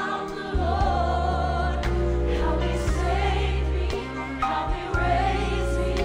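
Live gospel song: two female lead vocalists singing with vibrato over a choir. Underneath are a deep bass line and occasional drum hits.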